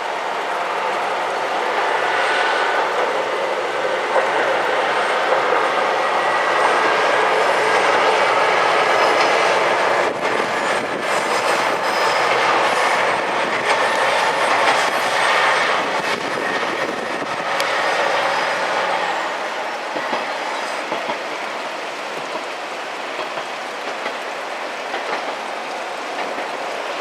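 KiHa 120 diesel railcar running along the track, a steady rumble of wheels on rails with clickety-clack. It swells to its loudest in the middle and eases off near the end.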